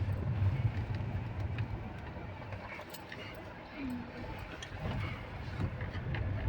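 Road and engine noise heard from inside a moving car's cabin: a steady low hum with a few faint ticks and rattles.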